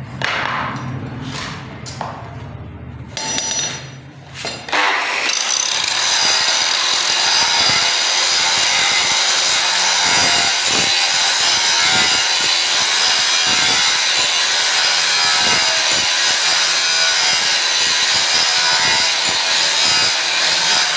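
Angle grinder with an abrasive disc grinding the face of a steel bar held in tongs, a steady loud grinding that starts about five seconds in, after a few knocks. The grinder is taking the scale off to bare metal so that the steel will forge-weld.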